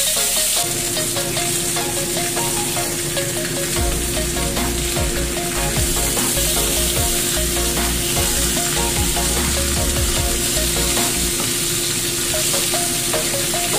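Fish frying in hot oil in a frying pan, a steady sizzle, with a wooden spatula scraping and turning the fish.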